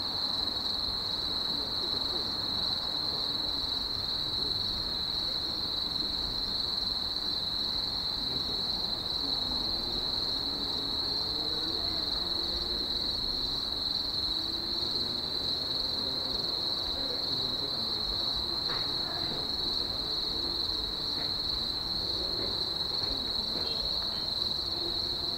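Night insects trilling in one steady, unbroken high note.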